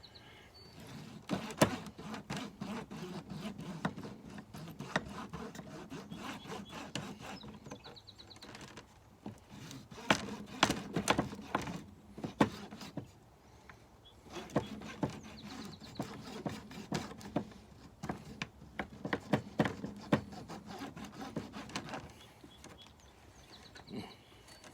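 A block of beeswax rubbed rapidly back and forth over a plastic hive foundation frame to coat it, a dense scraping in three spells with short pauses between.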